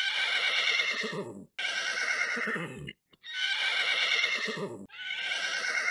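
Horse whinnying four times in a row, each neigh about a second and a half long and dropping in pitch at its end. It is a dubbed sound effect laid over a toy horse.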